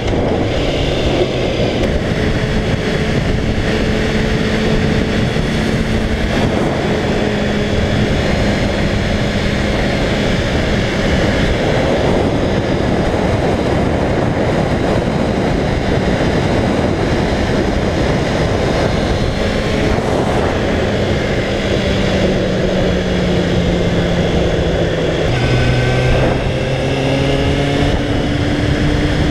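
Kawasaki ZXR400 inline-four engine running at steady revs on the move, under a heavy rush of wind and road noise. Its note sinks slowly about twenty seconds in, then drops and climbs again near the end as the revs change.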